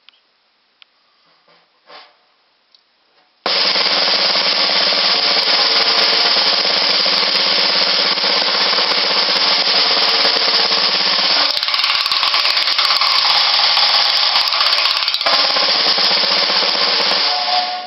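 Snare drum played with wooden sticks in a fast single stroke roll. A few light taps, then about three and a half seconds in the roll starts at full loudness and runs dense and even. About eleven and a half seconds in, its tone thins for a few seconds, losing its low body, before the full sound returns, and the roll stops just before the end with a short ring-out.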